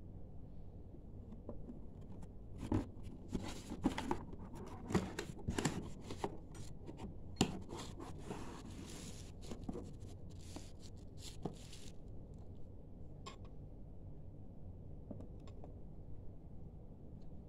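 Cardboard packaging being handled: a busy run of scrapes, rubs and light knocks, with a longer sliding scrape in the middle, then only an occasional tap.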